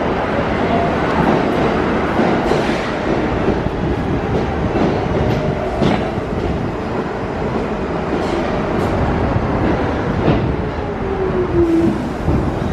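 R46 New York City subway train pulling into the station and slowing: steady rumble of steel wheels on rail, with clicks as the wheels cross rail joints, and a falling whine near the end as it slows.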